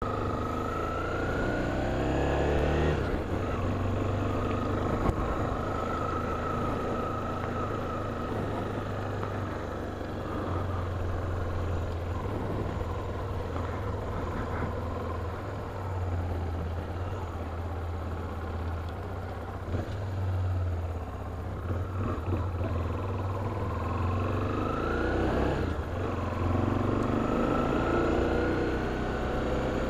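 A road vehicle driving: a steady low engine hum under road noise. The engine's pitch rises as it accelerates at the start and again about 24 seconds in.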